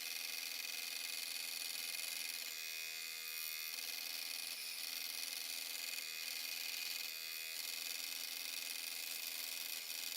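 Power saw running steadily with its blade cutting a piece of purpleheart wood, a continuous high buzz.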